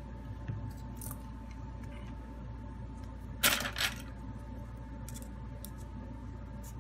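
A brief clatter of quick hard clicks, about three and a half seconds in, as the replacement phone LCD screen assembly is picked up and handled on the repair mat, over a steady faint hum with a thin high tone.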